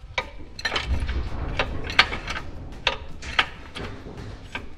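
Irregular metallic clinks and knocks, with a low rumble about a second in, as a transmission jack is worked up under a 4L80E automatic transmission.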